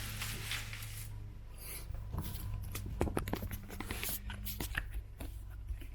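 Handling noise as a subwoofer is turned over by hand: scattered light clicks and scrapes, over a steady low hum.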